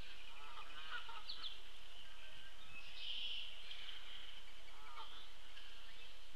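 Outdoor chorus of several wild birds calling and singing at once over a steady high background. A few short, harsh call groups stand out about half a second in, at about a second, and again around five seconds in.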